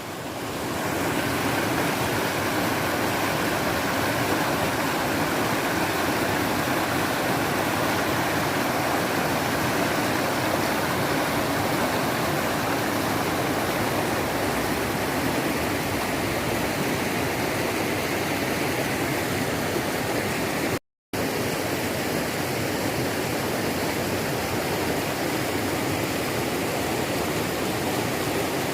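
Mountain stream water running steadily. The sound drops out for a split second about two-thirds of the way through.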